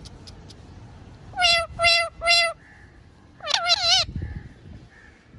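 Parrot calling: three short, loud, even-pitched calls in a row, then a longer wavering, warbling call about a second later.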